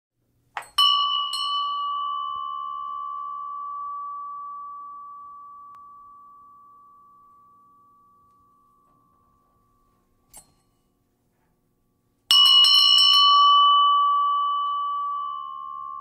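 A bell struck twice, about eleven seconds apart. Each strike rings one clear high tone that fades slowly over several seconds. The second strike is louder and is still ringing at the end. A light click comes just before the first strike, and another faint click comes a little before the second.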